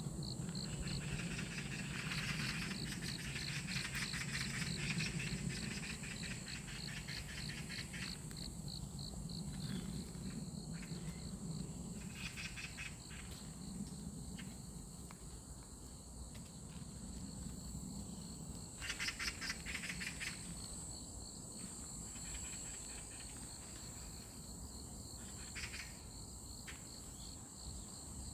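Insects trilling steadily in a high-pitched chorus, with a few louder rapid-pulsed bursts, the loudest about two-thirds of the way through, over a low steady hum.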